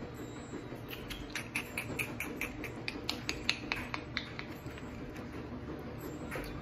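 Drumsticks clicking lightly, about a dozen quick, uneven taps over three seconds, over a low steady hum.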